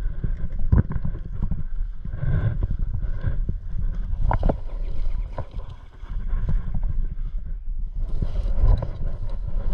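Wind rumbling on a body-worn camera's microphone, with irregular knocks and rustles as the wearer moves.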